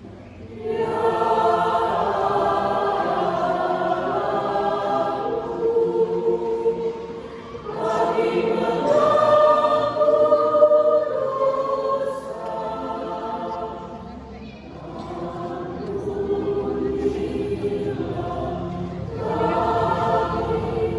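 Church choir singing in several-part harmony. It comes in under a second in, then sings in phrases that swell and fall away, with a brief dip around the middle.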